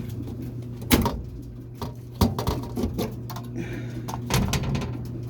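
Knocks, clicks and rattles of furnace filters and the filter slot being handled, the sharpest about a second in and a little past two seconds, over a steady low hum.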